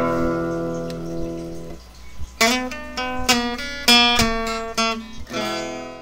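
Background music of a strummed acoustic guitar. One chord rings out, then comes a quick run of strummed chords, and the music fades out near the end.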